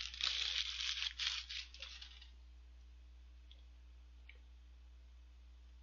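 A paper burger wrapper being crumpled up in the hand, crackling for about two seconds.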